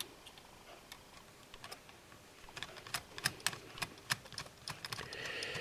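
Small metal tools clicking and tapping on a 3 mm bolt and a metal heat-shield plate as the bolt is set in with tweezers and a magnetic screwdriver. The clicks are light and scattered at first, then come as a quick irregular run of sharp ticks about halfway through.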